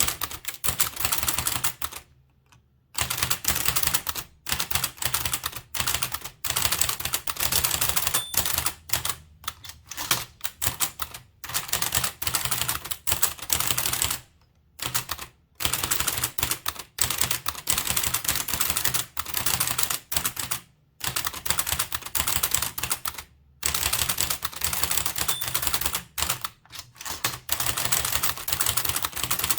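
Blickensderfer typewriter being typed fast. Its type cylinder strikes in a rapid, even clatter of several keystrokes a second, broken by a few short pauses.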